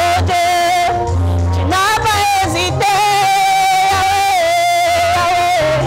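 Gospel song: a woman's lead voice holds one long high note with a slight waver from about two seconds in until near the end, over a bass line of held low notes.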